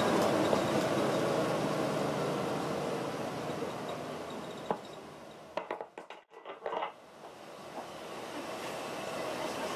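Bus cabin noise of engine and road, fading steadily as the bus slows to a stop. A few clicks and a brief drop-out about halfway through, then steady noise again.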